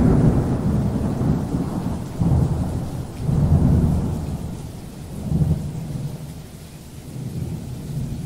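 Thunder rumbling in several low swells that rise and fade, over the hiss of steady rain.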